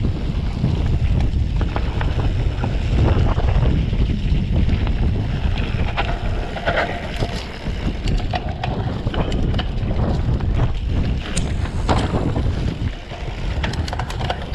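Wind rushing over the microphone of a mountain bike moving fast along a dirt trail, with a heavy low tyre rumble and frequent short clicks and rattles from the bike.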